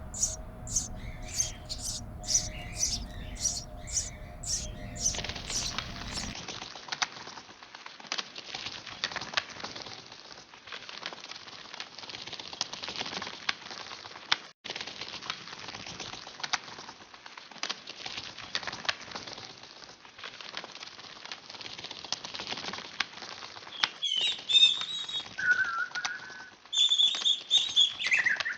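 Bird sound effects: a high chirp repeating about twice a second at first, then a long stretch of dense wing-flapping, and near the end several short whistled bird calls.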